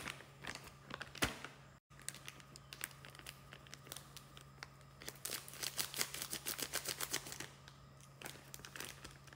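Plastic flour packet crinkling and rustling in the hand as cornstarch is shaken out of it into a bowl of wheat flour, the crackling busiest a little past the middle.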